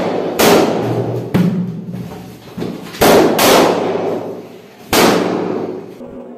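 Latex balloons bursting: about five loud pops at irregular intervals, each ringing out with a long echoing decay.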